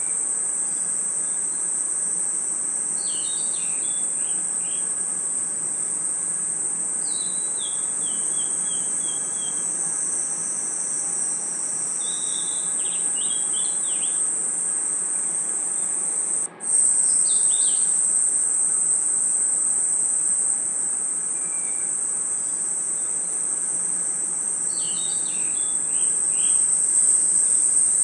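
Night chorus of crickets and insects: a dense, steady, high-pitched trill, with short falling chirp phrases a few times over it. The sound cuts out for an instant a little after halfway.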